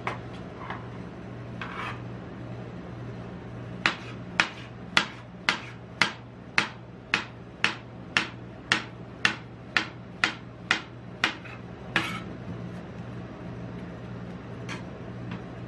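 Large knife chopping melon on the steel cold plate of a rolled-ice-cream machine: a steady run of sharp knocks, about two a second, as the blade cuts through and strikes the metal, lasting some eight seconds with a few softer knocks before and after. A steady low hum runs underneath.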